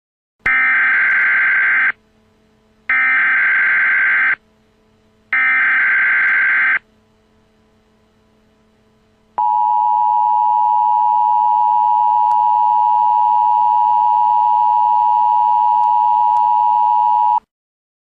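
Emergency Alert System tones opening a tornado warning. Three bursts of SAME header data tones come first, each about a second and a half long. Then the steady two-tone attention signal sounds for about eight seconds and cuts off suddenly.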